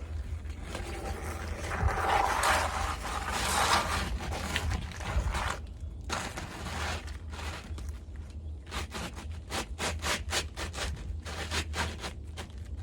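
Atlas Pinnacle asphalt shingle scraping and rubbing on the roof as it is worked back into place. A dense stretch of scraping comes about two to five seconds in, then a run of quick short scrapes near the end.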